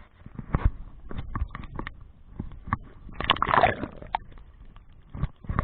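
Irregular knocks and clatter, with a louder rustling scrape about three seconds in: handling noise while the snagged line is worked.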